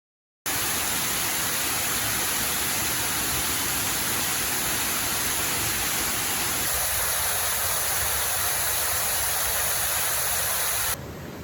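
A waterfall's steady rush of falling water. It starts abruptly about half a second in and cuts off suddenly near the end to a quieter hiss.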